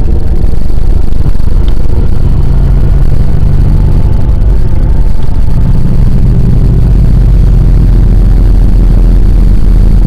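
Loud, steady rumble of a moving car: road and engine noise, heavy in the low end, with the engine note shifting slightly a couple of times as it descends a mountain road.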